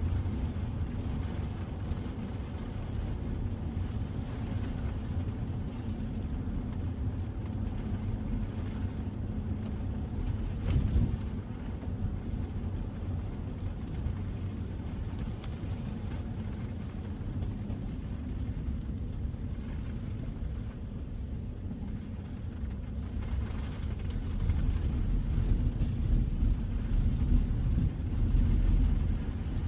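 2021 Ford F-150 pickup driving: a steady low rumble of road and engine noise that grows louder over the last few seconds.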